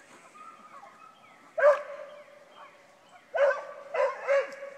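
A beagle baying while trailing a rabbit: a lone bay about a second and a half in, then three bays close together near the end.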